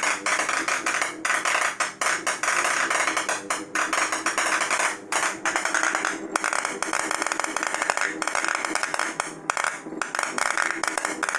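Spark discharges of a homemade CNC EDM crackling rapidly and irregularly as a copper electrode erodes an aluminum plate under water, a dense stream of snapping clicks broken by a few brief gaps.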